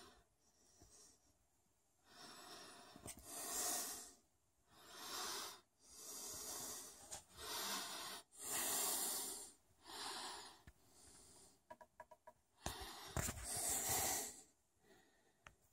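A person breathing audibly close to the microphone: a run of in-and-out breaths, each about a second long, with a few faint clicks near the middle.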